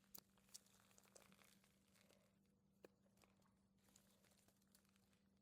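Very faint rustling with a few soft clicks: bundles of onion plants being unwrapped from their damp paper wrapping.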